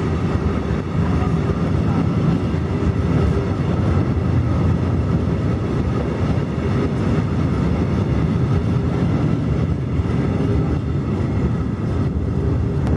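Freight train of covered hopper wagons rolling past at close range: a steady rumble and clatter of steel wheels on the rails.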